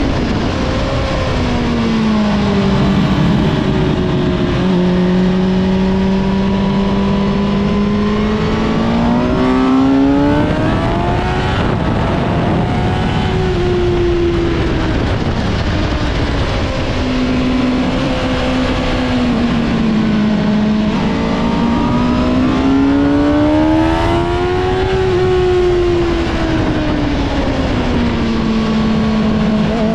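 Suzuki GSX-R sportbike's inline-four engine heard from onboard at speed, its pitch climbing under throttle and falling away on braking and into corners, several times over, with heavy wind rush.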